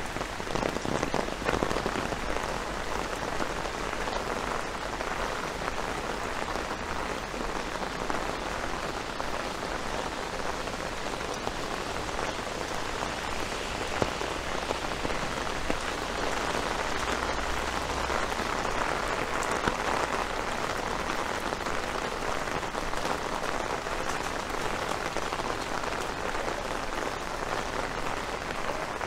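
Steady rain falling, a dense patter of drops, with a couple of sharper clicks partway through.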